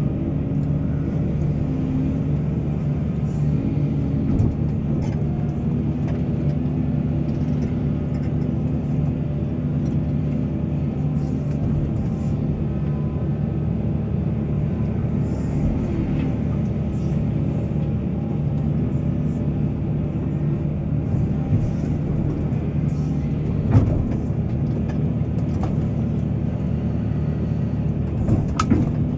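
Diesel engine of a heavy mining excavator running steadily, with a couple of sharp knocks late on.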